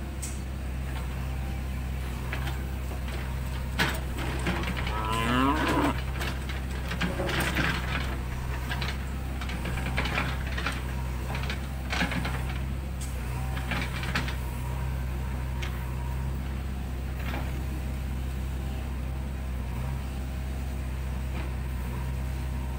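JCB 3DX backhoe loader's diesel engine running steadily while the backhoe arm swings and digs, with several clanks from the arm and bucket. About five seconds in there is a drawn-out, wavering tone.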